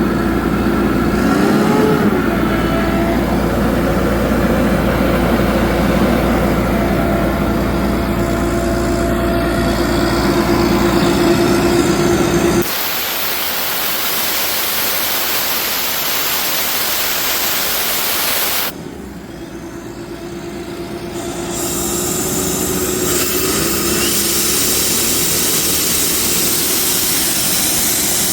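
The Sullivan 375 CFM portable air compressor's John Deere 4045 four-cylinder diesel engine running steadily. Partway through, the engine is replaced by a loud steady rushing hiss of compressed air for about six seconds, then the sound drops and the engine returns near the end.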